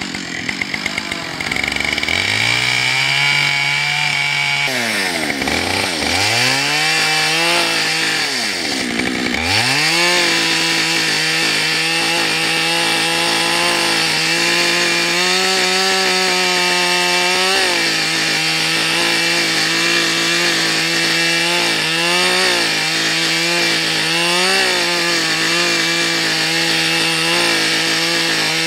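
Gas chainsaw revving up and down several times, then holding steady at high speed from about ten seconds in as it cuts along the length of a log, its pitch dipping briefly now and then under load.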